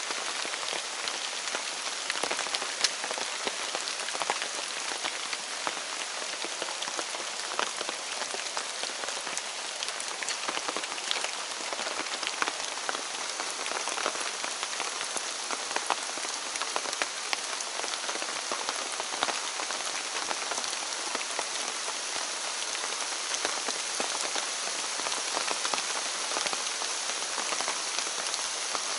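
Steady rain falling, with many individual drops ticking sharply through an even hiss.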